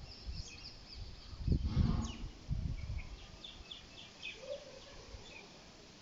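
Short, high chirping calls come in scattered bursts, some sliding in pitch. A few low dull thumps on the microphone fall in the first half.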